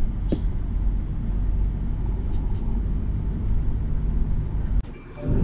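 Steady low rumble of a bus in motion, engine and road noise heard from inside the cabin, with a few faint ticks and rattles. It breaks off abruptly near the end.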